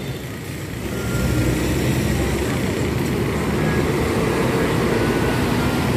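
Hafesa high-deck tour coach driving past close by. Its engine and tyre noise swells about a second in and then holds steady as the coach goes by, over the general noise of city traffic.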